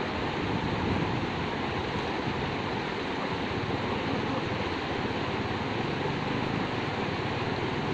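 Shallow rocky river rushing over stones: a steady, even rush of water.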